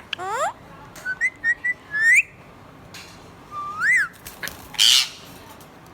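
Pet parakeets whistling and chirping: a couple of rising whistles, a quick run of short chirps, a rising-and-falling whistle, and a brief harsh squawk near the end.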